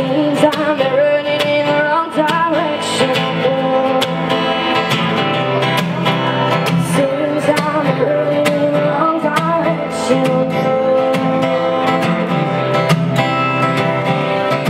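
A woman singing live to her own steadily strummed steel-string acoustic guitar.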